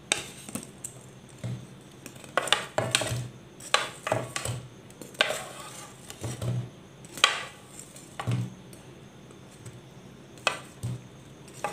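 Fried semolina (rava) gulab jamun balls dropped one at a time into warm sugar syrup in a pan: a string of short knocks, plops and clinks from the balls and a steel plate. A wooden spatula stirs the balls in the syrup near the end.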